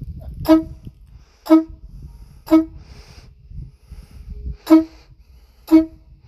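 Aftermarket air horn on a Chevy Express van sounding short, identical blasts about once a second: five toots with a pause of about two seconds after the third, the pulsing pattern of the key fob's panic alarm.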